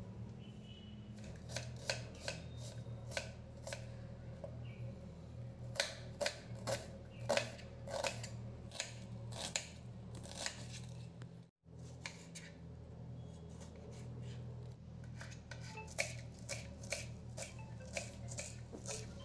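Kitchen knife chopping red onion on a hard surface, with irregular sharp knocks of the blade. After a sudden break partway through, quicker, lighter chopping of coriander leaves follows, over a steady low hum.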